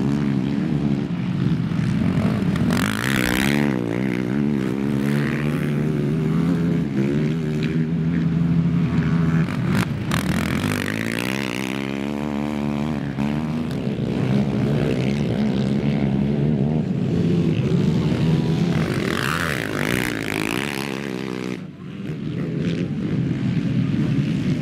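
Several racing quads with their engines revving up and down as they pass, more than one engine heard at once, the pitch rising and falling with throttle and gear changes. The sound dips briefly about three quarters of the way through.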